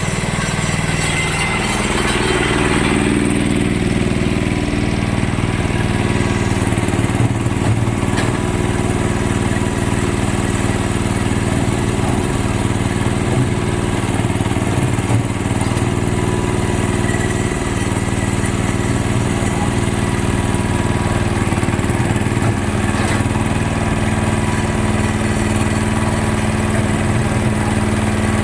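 Engine of a construction machine, a mini lift hoist or concrete mixer, running steadily at an even speed.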